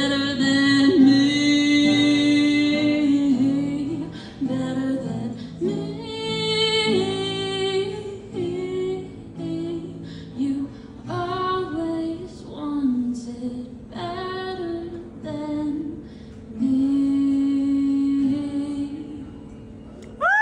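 A woman singing to her own strummed acoustic guitar, holding long notes at the start and again about three-quarters of the way through.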